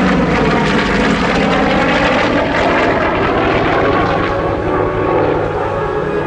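A Goodyear FG-1D Corsair's Pratt & Whitney R-2800 Double Wasp radial engine and propeller running as the fighter lands. Its pitch drops at the start, then holds steady.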